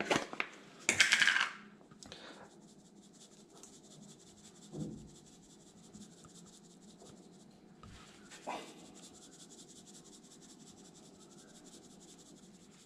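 Pepper shaker shaken over fish fillets in one short burst of rattling about a second in, followed by a quiet stretch of room tone with a couple of soft knocks.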